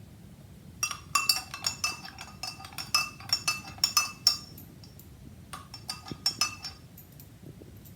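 A spoon clinking against the inside of a glass while black salt is stirred into the strained kadha: quick runs of ringing taps, a long run starting about a second in and a shorter one around six seconds.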